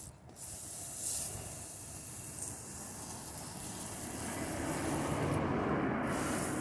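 Cleaning solution of washing soda, dish soap and water hissing and splashing as it is doused over a typewriter's mechanism, growing louder from about four seconds in.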